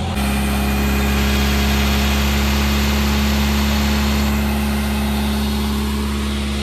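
A vehicle engine running steadily at a constant pitch, coming in abruptly at the start.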